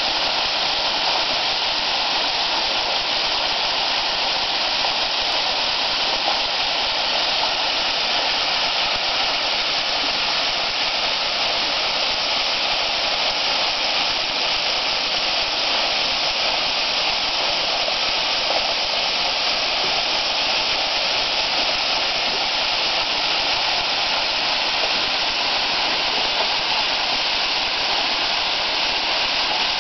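A waterfall about 65 feet high, falling at low early-autumn flow: a steady, even rush of water.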